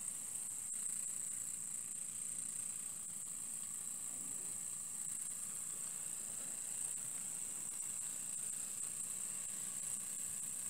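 Several small homemade vertical copper-boiler steam engines running together: a steady high-pitched hiss of steam, with faint scattered clicks from the running engines.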